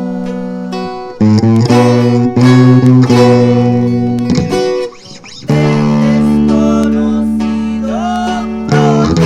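Regional Mexican band playing live: acoustic guitars strumming and picking over long held bass notes. The music drops briefly about five seconds in, then comes back in.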